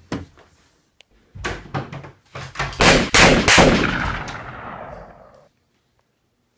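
A rapid, irregular volley of gunshots, loudest near the middle, trailing off in a long echo.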